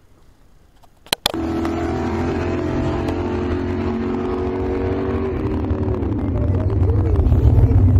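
An engine running, starting abruptly after a click about a second in; its steady tone drops in pitch around five seconds in, and a low rumble grows louder near the end.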